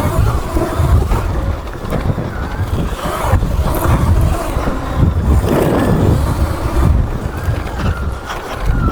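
Sur Ron electric dirt bike ridden along a dirt trail: heavy wind buffeting on the microphone and riding rumble. A thin, steady high motor whine comes in near the end.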